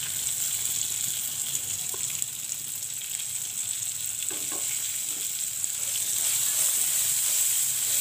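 Potatoes, peas and freshly added chopped tomatoes sizzling in hot oil in a frying pan, a steady hiss that grows a little louder about three-quarters of the way through. A few faint knocks are heard over it.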